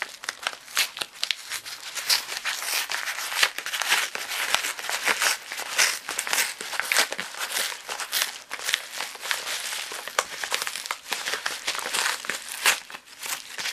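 Yellow padded paper mailer being torn open by hand, a continuous stream of paper crinkling and tearing crackles as the envelope is pulled apart.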